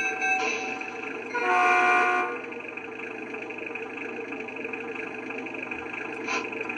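The onboard sound system of a Lionel Doodlebug model rail motorcar, parked and idling. Its bell sound stops about half a second in, then its horn sounds one short toot about a second and a half in. After that the steady hum of its idling engine sound carries on.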